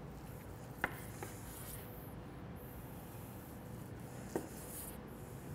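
Long slicing knife drawn through the crusty bark of smoked brisket, faint scraping strokes, with a sharp tap of the blade on the wooden cutting board twice: about a second in and again after about four seconds.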